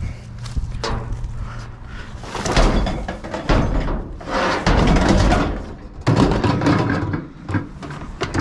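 Junk being rummaged through and shifted in a dumpster: rough clattering, scraping and several hard thuds and knocks, loudest in the middle of the stretch.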